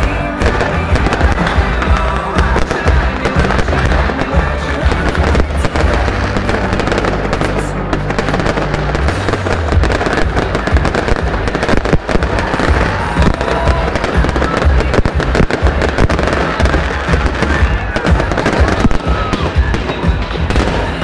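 Fireworks display bursting and crackling in a dense, continuous run of rapid bangs, with music playing alongside.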